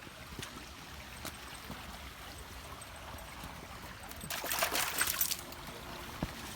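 A small creek trickling steadily, with a louder rush of noise lasting about a second about four seconds in.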